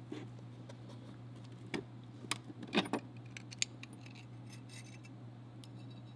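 Small steel SKS rifle parts clicking and clinking together as they are handled, with the recoil spring and guide rod drawn out of the bolt carrier: a handful of sharp metal clicks between about two and four seconds in, the loudest near three seconds. A steady low hum runs underneath.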